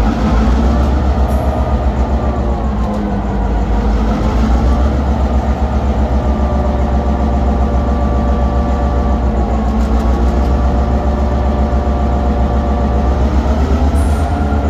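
EMD GP9 diesel-electric locomotive running at close range. Its engine gives a deep, steady throb, with a higher whining tone that slowly rises and falls.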